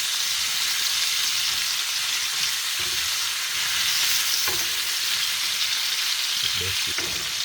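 Seasoning, potato and carrot sizzling steadily in hot oil in a cooking pot, with a few soft knocks.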